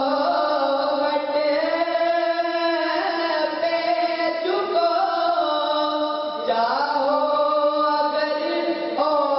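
A young man singing an Urdu naat into a microphone, unaccompanied, in long drawn-out notes that glide from pitch to pitch, with a short breath break about six and a half seconds in.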